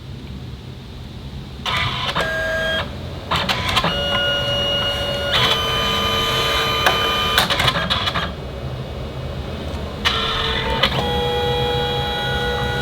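Canon Selphy CP1200 photo printer starting a print: its motor runs in stages, with steady whining tones that shift pitch between stages, starting about a second and a half in, easing off for a moment about two-thirds through, then running again.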